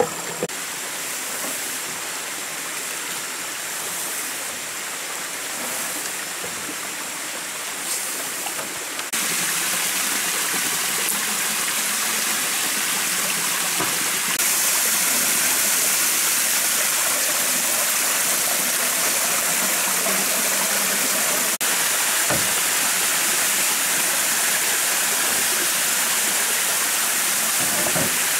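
Steady rush of a small forest stream and waterfall splashing over rock. The water gets louder about a third of the way in and again about halfway, then holds steady.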